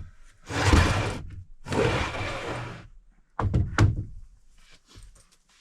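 Birch boards being handled at the table saw: two noisy rushes of about a second each, then a few sharp wooden knocks and thunks.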